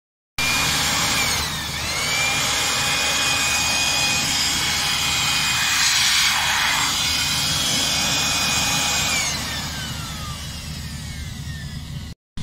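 Makita UB1102Z corded electric air blower running: a high motor whine over rushing air. Its pitch dips and climbs back about two seconds in, then falls away from about nine seconds as the motor slows, and the sound cuts off suddenly near the end.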